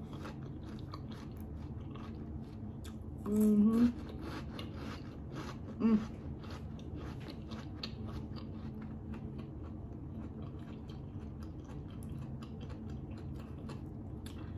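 Close-up chewing of a crunchy mouthful of salad: many small crunches all through. Two short vocal sounds, about three and a half and six seconds in.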